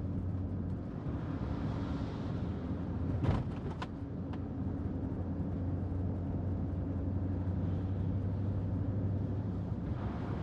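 Car cabin noise while driving: a steady engine and road hum, with two short knocks a little over three seconds in.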